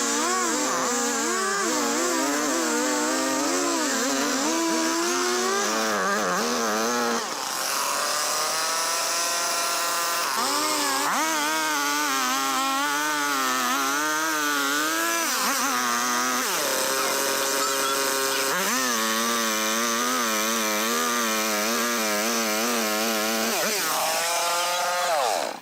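Stihl two-stroke chainsaw cutting through wood at full throttle, its engine pitch wavering and sagging as the chain loads in the cut, with a brief drop about seven seconds in. It cuts off abruptly at the very end.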